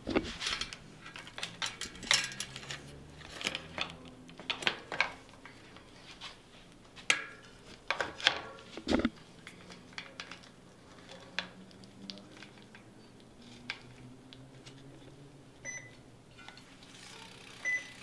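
Metal clicks and chain clinks as a road bike's rear wheel is fitted into the frame, with the chain running over the cassette and the Campagnolo rear derailleur. The clinks come thickly at first and thin out to occasional light taps in the second half.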